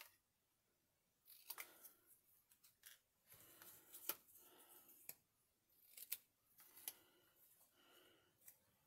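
Small craft scissors snipping paper and paper being handled: faint rustling broken by scattered sharp snips, after a silent first second.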